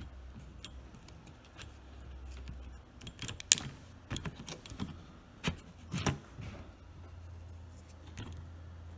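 Light clicks and rattles of small screws and plastic gears being handled in a MIG welder's wire-feed gearbox, a cluster of sharp ticks from about three seconds in until near seven seconds, over a low steady hum.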